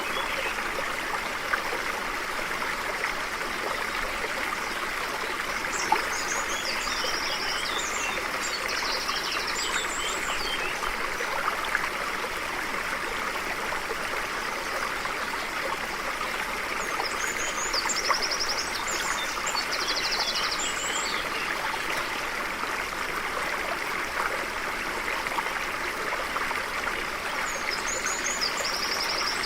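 Stream flowing steadily, with a songbird singing high, quick phrases of rapid notes and trills over it, three times.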